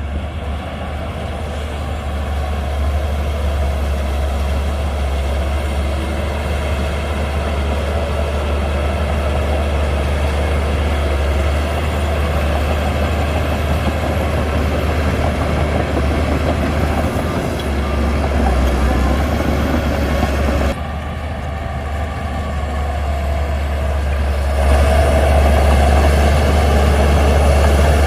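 Shantui DH17C2 bulldozer's diesel engine running with a steady low drone. It turns suddenly quieter about 21 seconds in and picks up again about four seconds later.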